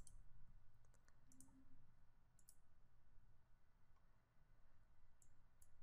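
Near silence with several faint, short computer-mouse clicks.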